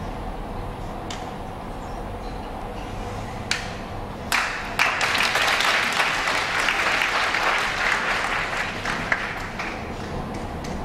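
Small audience applauding: a few scattered claps about four seconds in, then a burst of clapping for about five seconds that thins out and stops near the end.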